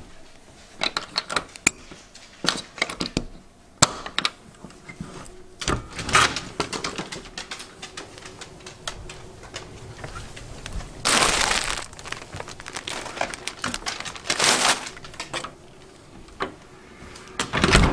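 A front door and storm door being opened and shut by hand: scattered clicks and knocks of latches and handles, with two rustling stretches of about a second each, the second about three quarters of the way in.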